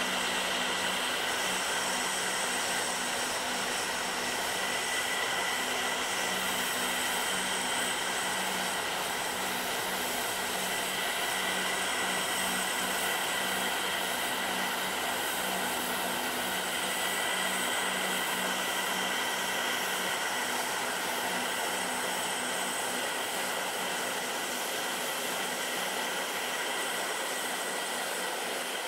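Quadcopter's electric motors and propellers whining steadily, picked up by the camera mounted on the craft: an even drone with several held tones over a constant rush.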